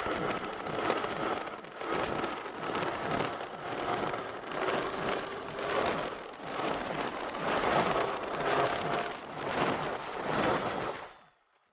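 Wind rushing and buffeting over the camera microphone of a moving motorcycle, with the engine's steady note faintly underneath. The noise fades out to silence shortly before the end.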